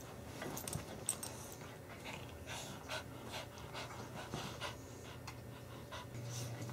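Dogs panting in short, irregular breaths as they play-wrestle.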